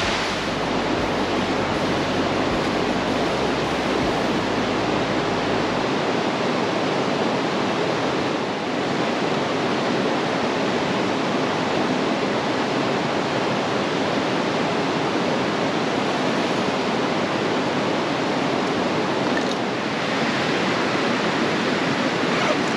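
Steady rushing of river water pouring over a low waterfall and across rock shoals.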